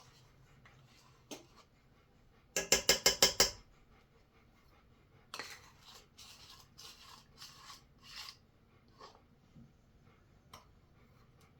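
A utensil knocking against a mixing bowl: about six quick, ringing knocks in a row, then several scraping strokes, as peanut butter is knocked and scraped off into the bowl.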